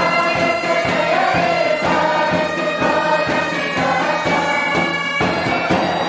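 Patriotic group music: many voices singing together over long held, drone-like tones and a steady drum beat.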